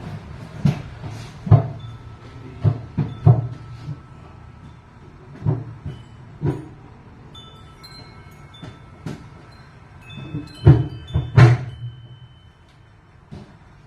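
Irregular knocks and clanks, about a dozen, with thin ringing tones that hang on for a few seconds in between.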